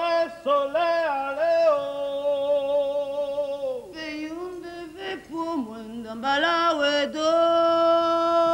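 A single voice singing unaccompanied, with long held notes that slide in pitch and break from one note to the next, ending on a long steady note from about seven seconds in.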